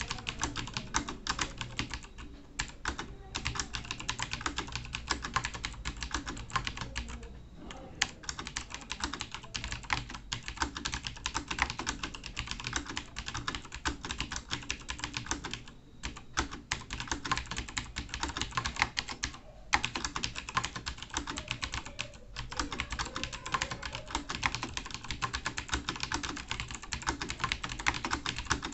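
Fast continuous typing on a computer keyboard, a dense run of keystrokes broken by a few brief pauses.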